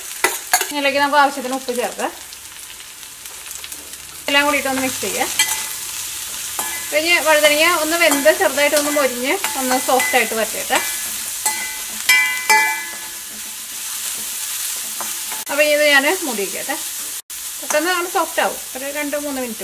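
A metal spoon stirring and scraping chopped vegetables frying in a steel kadai. The spoon squeaks against the pan in repeated wavering squeals, over a steady sizzle.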